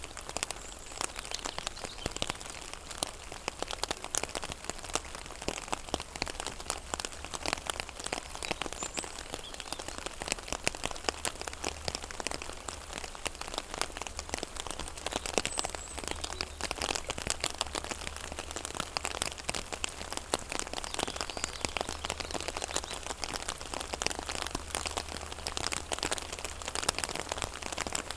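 Rain falling on a pond: a dense, steady patter of many small drops hitting the water, with a faint low hum underneath.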